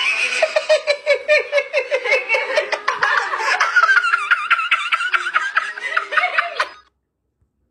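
A person laughing hard in rapid repeated bursts, which cut off suddenly near the end.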